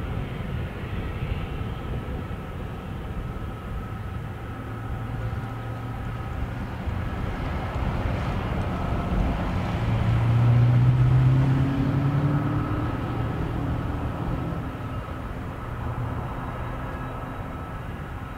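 Airbus A350-900 jet engines (Rolls-Royce Trent XWB) at taxi power: a steady jet whine over a low hum. It grows louder about ten seconds in as the aircraft turns to face the microphone, with a brief rise in pitch, then eases as it turns away.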